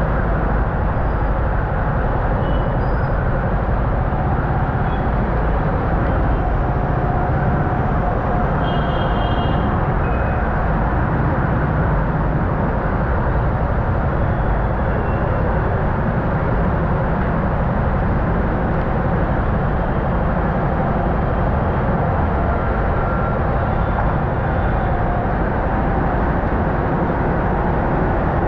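Steady rumble of idling engines in a stopped traffic jam, with a few faint short horn beeps.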